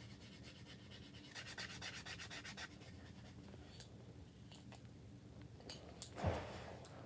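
A paint marker in use, faint: a quick run of rapid ticks lasting about a second and a half, then scattered light scratches, and a louder rustle of handling near the end.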